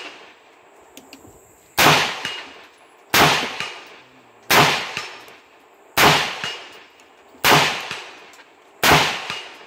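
Palmetto State Armory AR-15 with a muzzle brake fired in slow semi-automatic shots, six in all, about one every second and a half, each a sharp, really loud crack with a trailing echo. A faint metallic ring follows several of the shots as the bullets strike a steel target.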